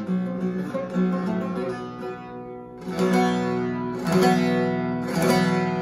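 Divan bağlama (long-necked Turkish saz) with a carved mulberry bowl and spruce top being strummed, its strings ringing on between strokes. Strong strums come about a second in, at three seconds, and twice more near the end, the last chord ringing out.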